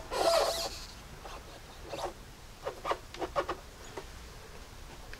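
A foam-sealed AC evaporator core being forced down into a plastic HVAC box: a rustling scrape at first, then a few short squeaks of foam and plastic rubbing as the tight fit works into place.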